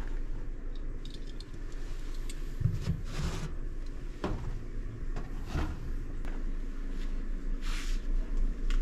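Handling noises at a metal locker: rustling and a few soft knocks as slide slippers are pulled out and dropped to the floor, over a steady low hum. The firmest knock, with a dull thump, comes about three seconds in.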